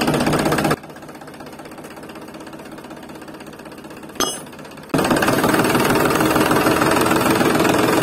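Mini toy tractor running with a rapid rattling, engine-like buzz. It drops away under a second in, there is one sharp click from the tow chain being hooked on near the middle, and the buzz returns at full level about five seconds in.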